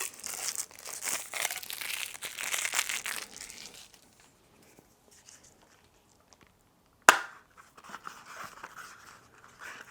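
Plastic packaging crinkling and tearing for a few seconds, then a pause. About seven seconds in comes a single sharp snap, the loudest sound, followed by softer crinkling.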